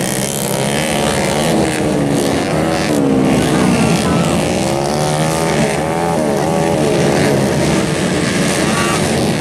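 Several minimoto dirt bike engines revving together in a race, their pitches rising and falling as the riders work the throttle through the dirt track's turns and bumps.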